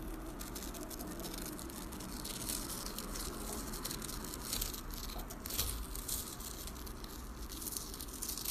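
Irregular crackling and rustling over a low steady hum, with scattered small clicks.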